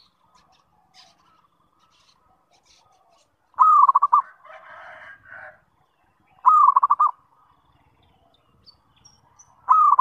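Zebra dove (perkutut) cooing: three calls about three seconds apart, the last near the end. Each is a clear opening note followed by a quick run of pulsed coos. A softer, noisier sound follows the first call.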